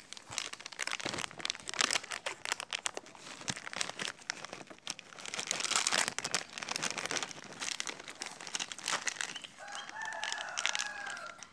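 Plastic snack packets crinkling and rustling as they are handled and torn open. About ten seconds in, a rooster crows once, for about a second and a half.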